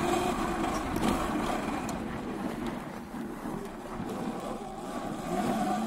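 Sur Ron X electric dirt bike riding a dirt trail: whine of the electric motor and chain drive over tyre and wind noise, easing off midway and picking up again with a rising pitch near the end.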